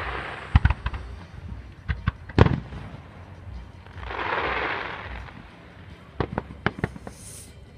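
Display fireworks going off: sharp bangs of bursting shells, the loudest about two and a half seconds in, a hissing rush about four seconds in, and a quick run of pops near the end.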